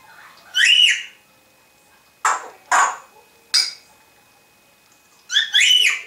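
African grey parrot calling in its cage. It gives a short whistled call about half a second in, three short, sharp calls a second or so apart, and a cluster of quick whistled calls near the end.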